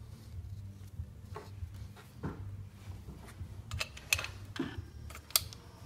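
Compression tester being fitted by hand: scattered small metallic clicks and taps as the hose adapter is screwed into the spark plug hole and the gauge coupled on, over a low steady hum.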